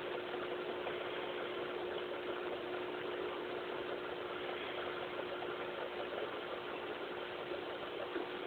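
Aquarium air pump or filter running: a steady hum with the constant fizz of water and rising bubbles.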